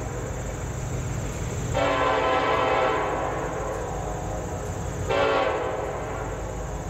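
Freight locomotive horn sounding for a grade crossing: one long blast about two seconds in, then a short blast about five seconds in, over a steady low rumble.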